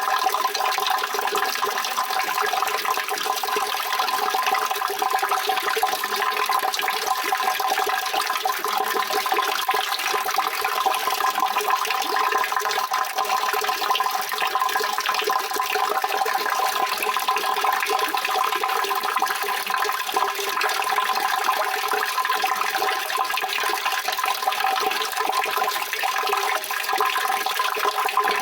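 Running water rushing steadily and evenly, without a break or change.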